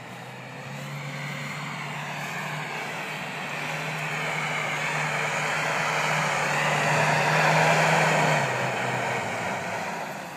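Off-road 4x4's engine running steadily as the vehicle drives over rocky ground toward the listener, getting louder as it nears, loudest about eight seconds in, then dropping away.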